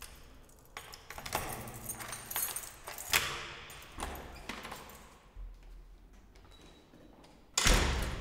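Keys jangling as a key is worked into an apartment door's lock and turned with a sharp click. Near the end comes a sudden loud thud as the door shuts.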